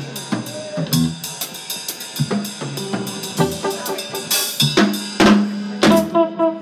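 Live band playing, with the drum kit to the fore: scattered kick, snare and cymbal hits. Steady held notes from the bass and keyboard come in under the drums near the end.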